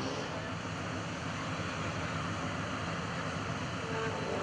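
Off-road race car engine running at a distance, heard mostly as a steady rush of noise.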